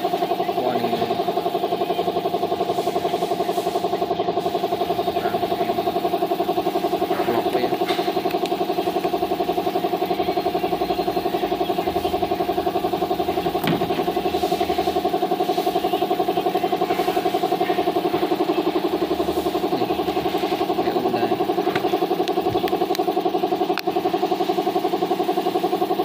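A small engine or motor running steadily at one speed, a constant hum with a fast, even pulse, and a few light knocks over it.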